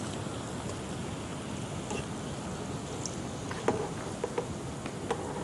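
Wheat-flour and oats namkeen deep-frying in hot oil in a kadai: a steady sizzle, with a few light taps of the spoon against the pan in the second half.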